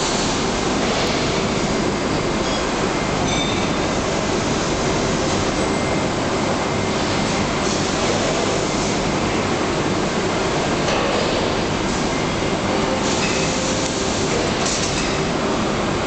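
Steady factory-hall machinery noise: a loud, even rumble and hiss with a faint steady hum, and a few short brighter hissing flares now and then.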